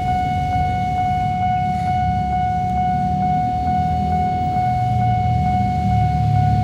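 A steady, unbroken electronic warning tone, siren-like, over a low rumble.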